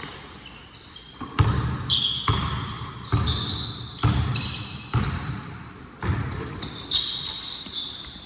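A basketball bouncing, about one thump a second, each ringing on in a reverberant gym, with short high sneaker squeaks in between.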